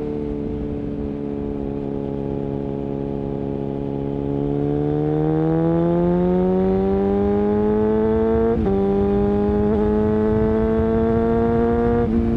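Suzuki Bandit 650's carbureted inline-four through a Mivv exhaust. It holds a steady note at first, then the revs climb under acceleration, with sudden pitch drops from upshifts near the middle and near the end.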